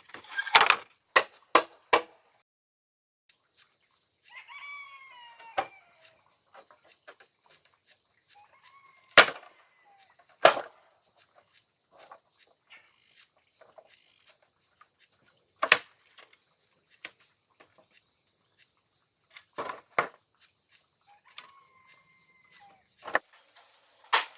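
Sharp chopping blows on wood or bamboo, a quick run of strikes at the start, then single blows every few seconds. A bird calls briefly twice between the blows, over a faint high hiss.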